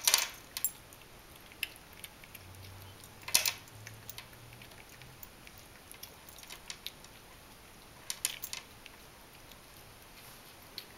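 Persian kitten eating ground raw rabbit from a plate: small irregular wet clicks and smacks of chewing, with a few louder ones about three seconds in and around eight seconds.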